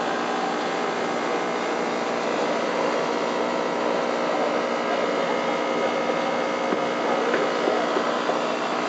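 Steady whirring drone of the fish tank's water pump and aeration, even and unbroken.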